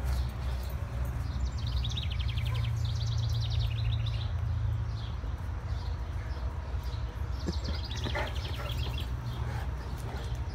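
A songbird singing fast high trills, a few runs of rapid repeated notes, over a steady low rumble.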